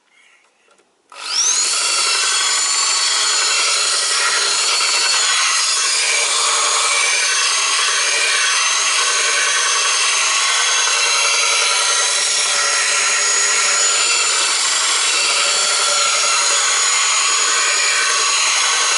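Makita electric belt file starting up about a second in with a rising whine, then running steadily while grinding the bevels of a steel machete blade.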